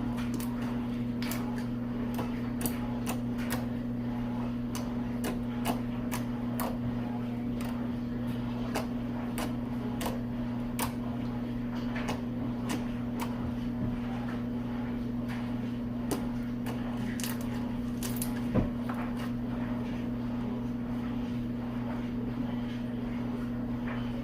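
A steady low electrical hum with many irregular small clicks and ticks over it, one sharper click near the end.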